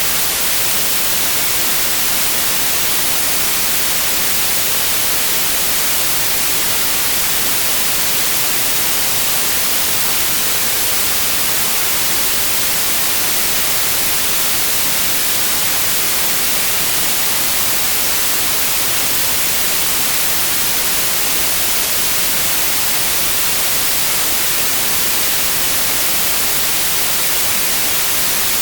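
White noise: a steady, unchanging hiss, brightest in the highs, with no breaks or changes.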